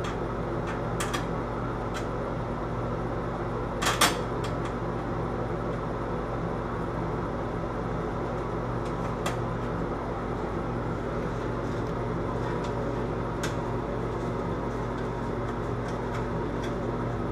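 A metal bathroom vanity light fixture is handled as it comes off the wall, giving scattered light clicks and a sharper knock about four seconds in, over a steady low hum.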